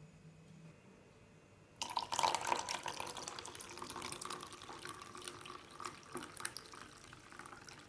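Lukewarm water poured from a stainless steel pot into a plastic cup of lemon juice: the stream starts suddenly about two seconds in and splashes steadily as the cup fills.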